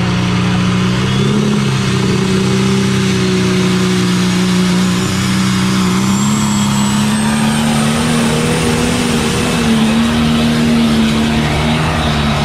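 Diesel pulling tractor running flat out under load as it drags the weight sled, a loud, steady engine note whose pitch wavers only slightly.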